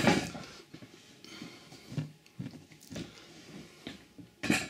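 Handling noise: a few soft knocks and rustles as things are moved about on a workbench, with a sharper knock near the end.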